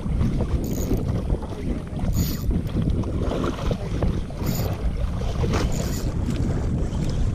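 Wind buffeting the microphone aboard a small boat at sea: a heavy, ragged rumble, with short hissing bursts every second or two.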